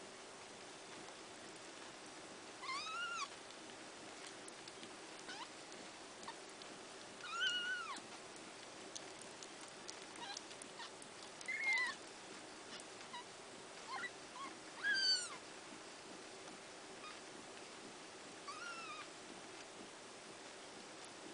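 Newborn kittens mewing while they jostle at their mother's teats: about six short, high-pitched cries that rise and fall, the loudest near the middle, with fainter squeaks between them. These are underfed kittens competing for too little milk.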